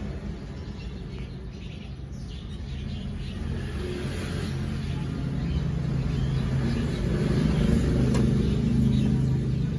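A motor vehicle's engine running, a steady low hum that grows louder through the second half.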